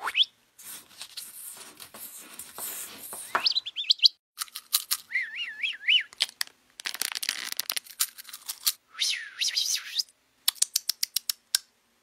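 A string of playful sound effects laid over stop-motion: a quick rising whistle at the start, stretches of hiss, a warbling bird-like whistle about five seconds in, and a rapid run of about ten clicks near the end, with dead silence between them.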